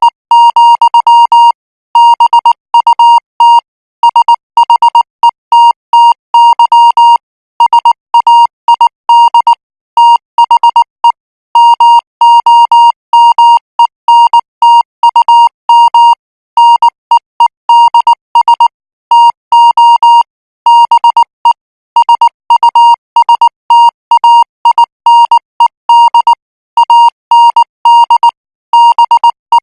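Morse code practice signal sent at 18 words per minute: a single beep tone keyed on and off in dots and dashes, in short groups with brief pauses between them.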